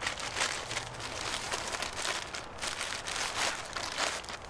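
Packaging rustling and crinkling with many quick, irregular crackles as a shirt in a clear plastic package is pulled out of a mailer bag.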